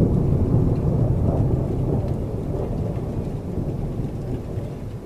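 Thunder-and-rain sound effect: a low rolling rumble with a rain hiss, fading steadily.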